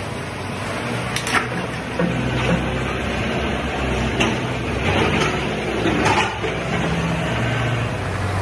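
Forklift engine running steadily under load as it carries a large steel excavator bucket, with a few sharp knocks about a second in and again between four and six seconds in.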